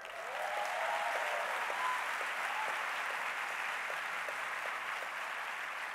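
Audience applauding, swelling up within the first half-second, holding steady and easing off slightly near the end, with a few voices calling out over it in the first couple of seconds.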